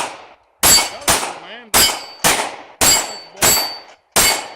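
A string of about seven gunshots fired at a steady pace, roughly two a second, most followed by a short high ringing ping from hits on steel targets.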